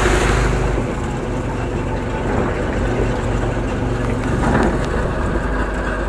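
Off-road truck's engine running steadily as it drives over gravel, heard from the open passenger bed with wind noise across the microphone.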